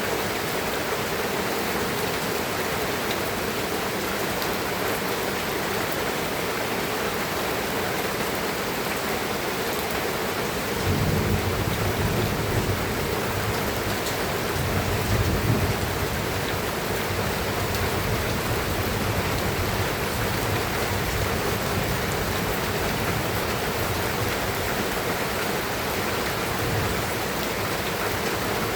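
Steady rain falling on surfaces, a continuous even hiss. About eleven seconds in, a low rumble swells up under it, peaks a few seconds later, then fades back.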